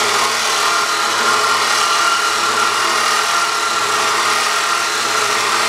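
Harbor Freight 12-volt winch motor running under power, turning a scissor jack's screw and opening the jack. It makes a steady, really loud electric motor whine.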